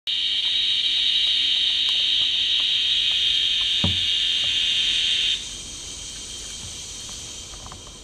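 Played-back recording of the northern dusk-singing cicada (Tibicen auletes) song: a loud, steady, even buzz that cuts off abruptly about five seconds in, leaving a fainter, higher buzz that fades away near the end. A single soft thump sounds just before the cutoff.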